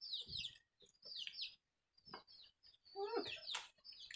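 Birds chirping: a run of short, high, falling chirps, several a second in small groups, with a few faint clicks between them.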